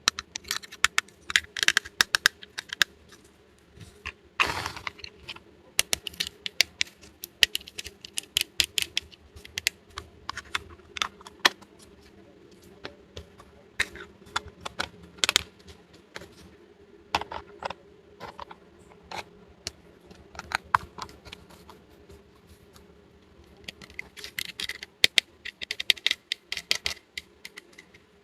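Small plastic toy pieces clicking and tapping as they are handled and set down, in quick irregular clusters with pauses between.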